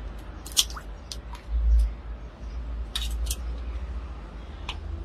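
Live spiny lobsters handled in a steel basin of water: scattered sharp clicks and scrapes of shell, small wet drips and squelches, and a low handling thump about one and a half seconds in.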